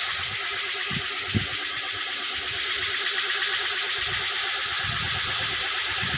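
Home-built band-saw machine running on its own, a steady mechanical whir with occasional soft low knocks.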